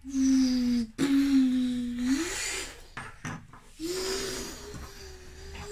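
A boy making engine or jet noises with his voice: three long steady hums with a breathy hiss, the second rising in pitch at its end. The toy speedboat rubs along the wooden table underneath.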